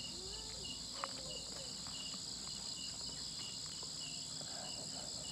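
Night chorus of crickets and other insects: a steady high trill with a shorter chirp repeating about one and a half times a second.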